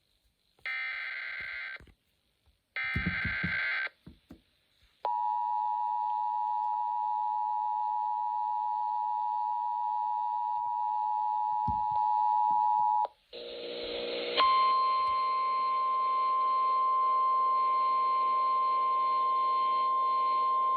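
Emergency Alert System tones: two one-second bursts of the SAME digital header data, then the steady two-tone EAS attention signal for about eight seconds. After a brief noisy break, a single steady weather-radio alert tone starts over a background of hum.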